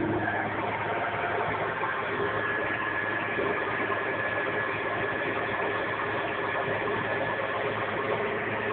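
A boat's 4.3-litre Mercury V6 running steadily in gear on a garden-hose water supply, with water spraying off the spinning stern-drive propeller. The cooling water is pumping well.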